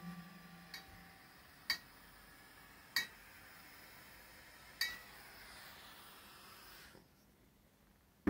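A home-built valveless pulse jet falls silent: the last of its low drone fades away in the first second. After that it is nearly quiet, with a few faint, sharp metallic ticks a second or so apart.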